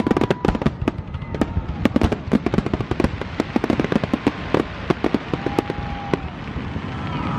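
Fireworks finale: a dense, rapid barrage of bangs and crackles going off many times a second without a break.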